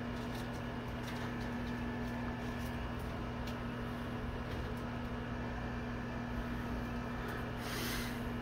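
Steady low electrical hum of room tone, with a few faint ticks and a brief rustle near the end.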